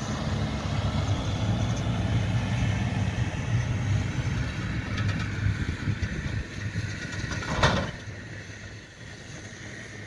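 John Deere tractor engine running steadily as it pulls a silage trailer across the field; the engine sound drops away after about eight seconds. Just before that comes a short loud rush of noise.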